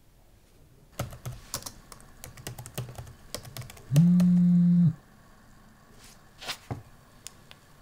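Smartphone keyboard clicks as a text message is typed, a quick irregular run of taps for about three seconds. Then a phone vibrates with one steady, loud buzz lasting about a second as the message arrives, followed by a couple of soft knocks as it is handled.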